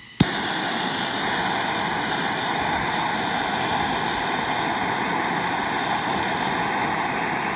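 Hand-held MAPP gas torch lighting: a short hiss of gas, a sharp click of the igniter, then the flame burning steadily with a loud rushing noise.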